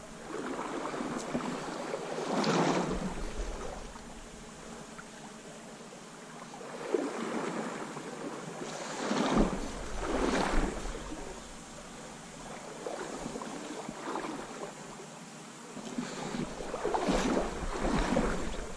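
River water sloshing around a wading angler's legs, swelling and fading every few seconds, with some wind on the microphone.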